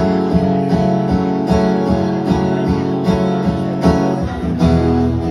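Acoustic guitar strummed in a steady rhythm, about two chord strokes a second, playing the introduction of a song before the vocals come in.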